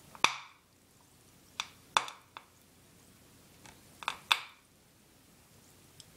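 Hydrogen bubbles from baking-soda electrolysis igniting at the water surface under a lighter flame, going off in a string of sharp little pops: loudest about a quarter second in, near two seconds and just after four seconds, with fainter ones between and near the end.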